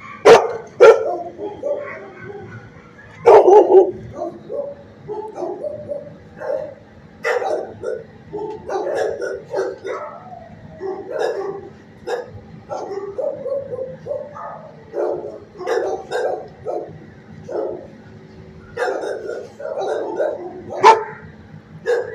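Dogs barking in a shelter kennel block, with many short barks overlapping irregularly and a few much louder sharp ones. A steady low hum runs underneath.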